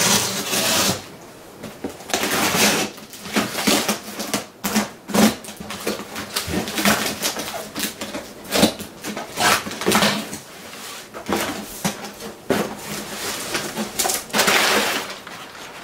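Cardboard shipping box being opened by hand: packing tape worked loose and torn, the box scraped and knocked about, and its flaps and crumpled kraft packing paper rustling, in an irregular run of short scratchy and ripping noises.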